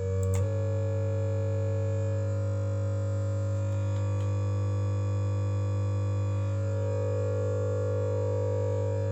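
Blue-screen crash buzz: just after the start the air raid siren recording breaks off with a click and freezes into a loud, dead-steady drone of stacked tones, a stuck audio loop that does not change.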